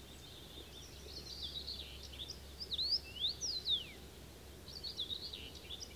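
Songbirds chirping and twittering in quick rising and falling notes, over a faint steady low hum.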